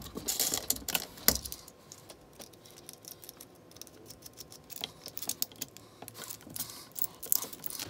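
Small metallic clicks and rattles of a metal screw-on cable connector and its braided cable being handled and fiddled with by hand, busiest in the first second and again in the last few seconds.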